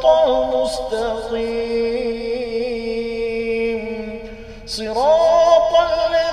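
A man's voice reciting Quranic Arabic in a chanted, melodic style, drawing out one long held note with slight wavers. The voice drops away briefly about four seconds in, then comes back on a rising phrase.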